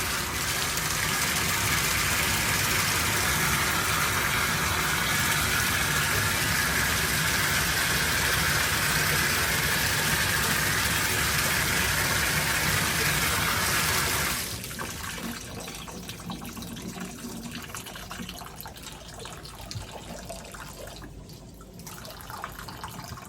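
Water running hard from the shower valve in a steady rush, shut off suddenly about fourteen seconds in, after which only a much quieter hiss remains.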